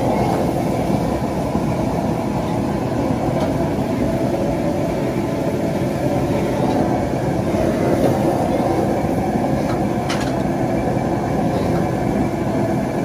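Commercial gas wok burner running with a loud, steady low rush under a wok of diced meat and chilies being stir-fried. A metal ladle clicks against the wok a couple of times.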